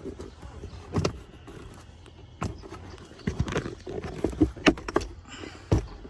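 Plastic glove box of a 2020 Dodge Durango being fitted back into the dashboard and hooked in: a string of separate clicks, knocks and rattles, busiest in the second half.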